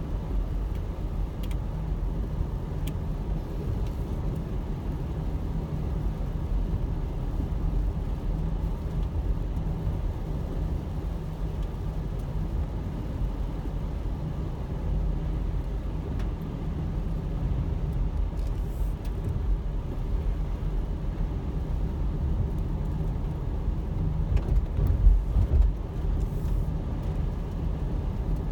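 Steady road and engine rumble heard from inside a car's cabin while driving on a rain-wet road.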